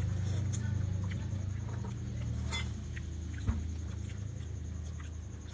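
Small clicks and crackles of balut eggs being peeled and eaten at a table, over a steady low hum. There is a sharp click about two and a half seconds in and a dull thump about a second later.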